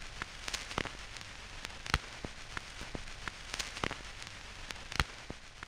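Faint crackling surface noise: a steady hiss with scattered, irregular clicks and pops, the loudest about two seconds in and again about five seconds in.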